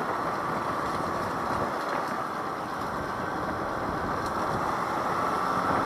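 Daelim Witty 100 scooter under way: a steady blend of its small engine, wind and road noise, with some rattling from the underside.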